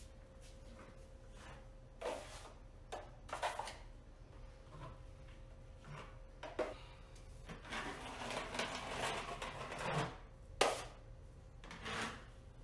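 Steel taping knife scraping quick-set joint compound across a drywall ceiling patch in separate short strokes, with a longer rough scrape about eight to ten seconds in and a sharp click soon after.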